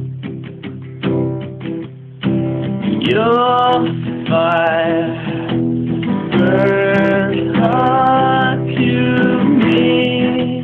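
Acoustic guitar strummed in steady chords, with a man singing over it. The guitar plays alone for about two seconds, then long held sung notes come in, the first sliding up into pitch.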